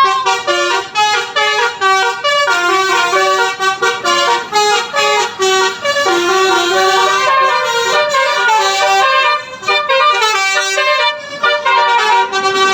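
Basuri telolet horn, a multi-tone musical air horn, playing a melody of short held notes that step up and down several times a second. There are brief breaks between phrases.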